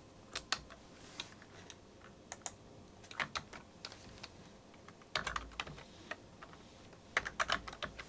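Short bursts of typing on a computer keyboard, a few keystrokes at a time with pauses between.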